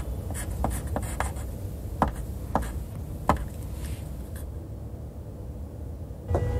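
Irregular sharp clicks and light scratching over a low rumble, thinning out after about four seconds. A steady tone with overtones comes in just before the end.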